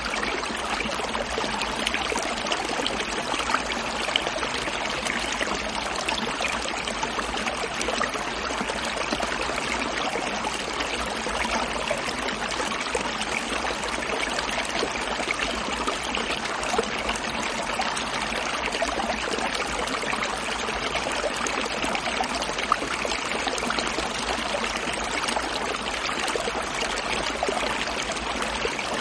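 A stream flowing and gurgling in a steady, unbroken rush of water.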